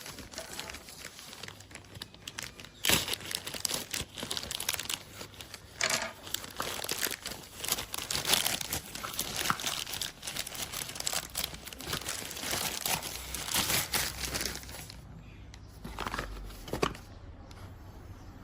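Packaging crinkling and rustling as a product is unboxed by hand, in irregular bursts with sharp crackles and some tearing. The sound dies down for the last few seconds.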